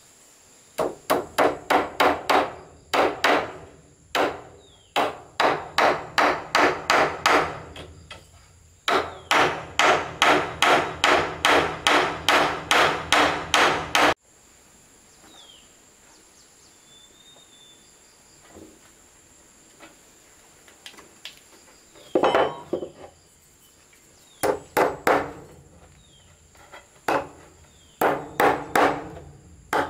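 Hammer striking wood in quick runs of about three ringing blows a second, with short pauses between runs and a longer pause of about eight seconds in the middle. A faint steady high insect drone sounds underneath.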